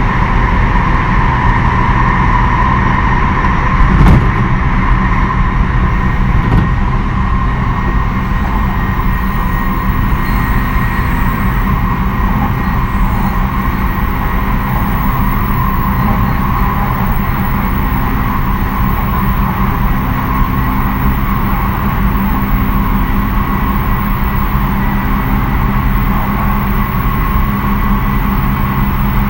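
Tsukuba Express 2000 series electric train running at a steady speed. The wheels rumble on the rail under a constant motor whine, with a short knock about four seconds in and a smaller one a couple of seconds later.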